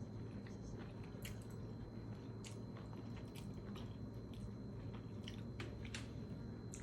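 Close-up chewing and slurping of a mouthful of noodles and whelk in chili dressing: irregular soft wet clicks and squelches over a steady low room hum.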